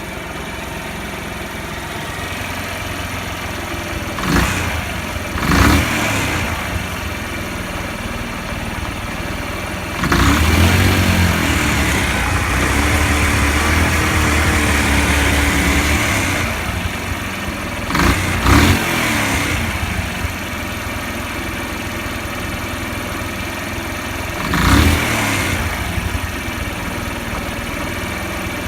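Bored-up Honda Cub single-cylinder four-stroke engine idling, blipped briefly several times and held at higher revs for about six seconds in the middle.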